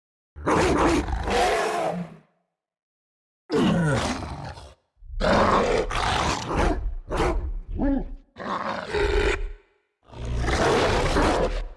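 Film werewolf creature sound effects: a string of separate roars and snarls, each a second or two long, with complete silence between them. The one about three and a half seconds in slides down in pitch.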